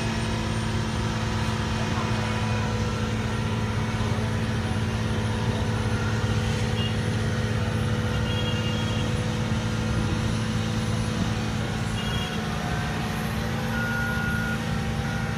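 Diesel engine of heavy asphalt-paving machinery running steadily at a constant pitch, with no revving.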